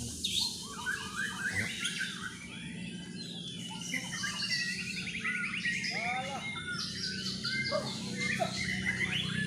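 Several caged white-rumped shamas singing at once. Their loud whistles, fast trills and chirp series overlap densely throughout.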